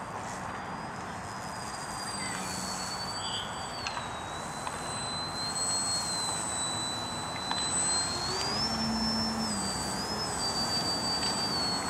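Battery-powered motor and propeller of a foam RC stunt plane (3DEPP Yak) whining in flight, its pitch stepping up and down several times with throttle changes, over steady wind noise on the microphone.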